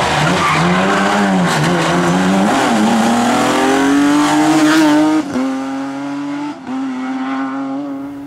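Rally car engine at full throttle on a special stage. The revs waver up and down, then climb steadily; the pitch drops sharply at a gear change about five seconds in, dips again briefly about a second later, and the sound fades near the end as the car moves away.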